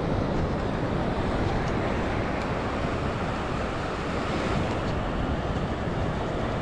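Steady wind buffeting the microphone over the continuous wash of surf on the shore.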